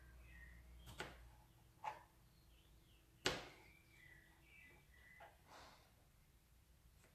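Knife blade striking a plastic cutting board while dicing a tomato: a few sharp knocks about one, two and three seconds in, the third the loudest, then a couple of softer ones. Faint high chirps are heard between them.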